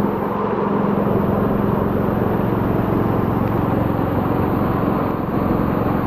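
Waterfall and fast river current rushing close by: a loud, steady roar of water.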